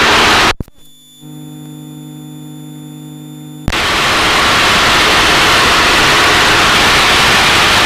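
Loud steady hiss of cockpit noise carried over the Extra EA-200's intercom, which cuts off abruptly about half a second in, leaving a quieter steady hum with a few fixed tones, then snaps back on about three and a half seconds later and holds steady as the aircraft dives for speed.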